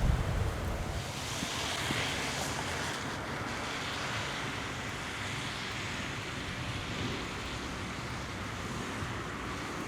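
A Kawasaki RC-2's twin turbofan jet engines are heard as a steady hiss. A low rumble of wind on the microphone breaks off about a second in.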